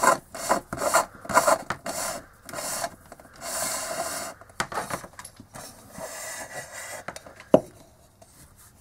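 A speaker's plastic horn housing and its cable being handled and rubbed, giving a run of short rubbing and scraping strokes, then one longer scrape, with a single sharp knock near the end.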